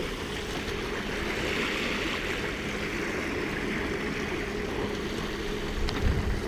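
Water rushing and hissing along the hulls of a small sailing catamaran moving fast, swelling about two seconds in. Wind buffets the microphone near the end.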